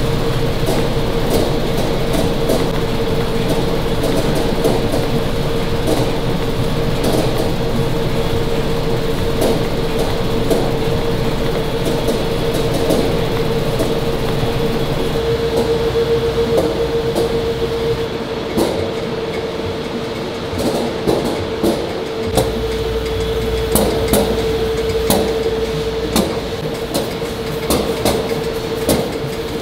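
Seaweed-processing conveyor machinery running, with a steady hum, a constant rattle and scattered sharp clicks as dried laver flakes are carried along stainless-steel trays and belts. The low rumble drops out for a few seconds about two-thirds of the way through, then returns.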